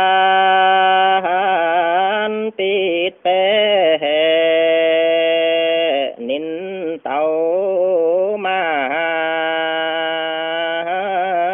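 A man singing a Dao Tuyển folk song solo, in long held notes that waver and slide in pitch, with short breaks between phrases.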